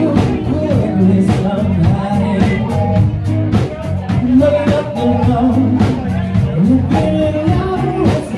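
Live cover band playing: a lead singer singing over electric bass and drums, recorded on a phone in the room.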